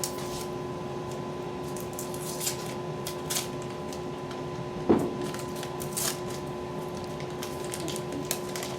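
Kitchen handling sounds: scattered light clicks and rustles and one sharper knock about five seconds in, over a steady electrical hum.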